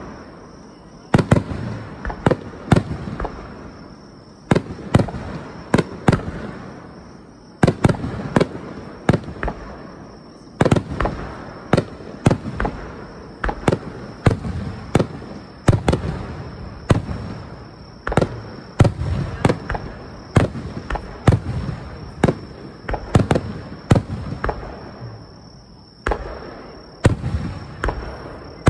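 Aerial firework shells bursting in a rapid, continuous series of sharp bangs, many coming in tight clusters, each trailing off in a low rumble.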